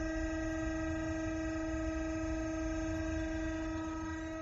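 Hydraulic oil pump of a tilting aluminium melting furnace running with a steady whine and low rumble while it drives the furnace up.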